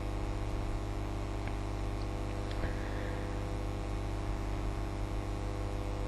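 Steady electrical mains hum with a buzzy stack of evenly spaced overtones, and a few faint ticks.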